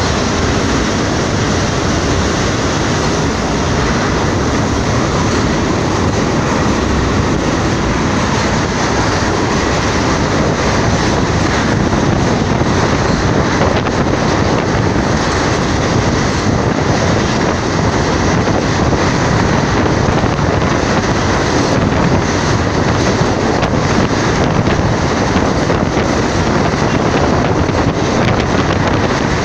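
Passenger train running steadily at speed, heard from an open coach window: a loud, even rumble of wheels on the rails mixed with wind rushing over the microphone.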